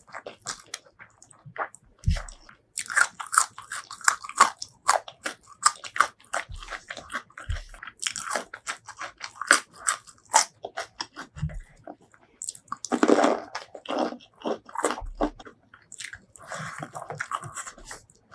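Close-miked eating: wet chewing and crisp crunching, bite after bite, of rice with sambal terasi and raw lalapan vegetables such as cucumber. A louder, longer stretch of crunching comes about two-thirds of the way through.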